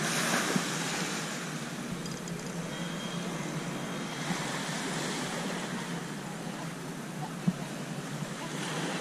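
Steady outdoor noise of wind and small waves breaking on the shore, with one short knock about seven and a half seconds in.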